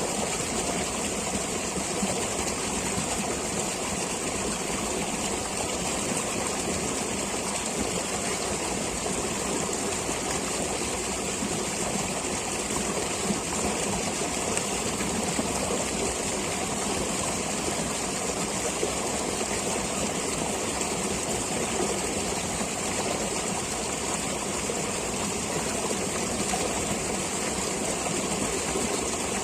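A stream of flowing water rushing steadily and evenly, without breaks or changes.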